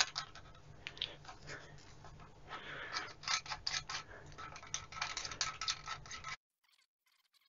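Light metal clicks and scraping of brass shorting links being fitted onto a bench power supply's binding-post terminals, cutting off abruptly about six seconds in.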